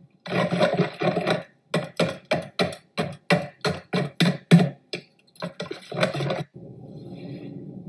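Wire balloon whisk beating a liquid marinade of milk, eggs and spices in a mixing bowl: rhythmic slapping strokes, about four a second, which stop about five seconds in, with a shorter burst of whisking near the six-second mark.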